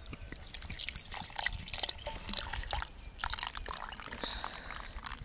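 Water being poured and sloshed, with irregular splashing and trickling.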